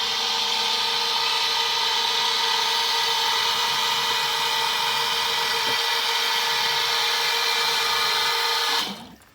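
Power drill spinning a hole saw, cutting steadily through the wall of a drainage pump station with an even motor whine, then stopping suddenly near the end.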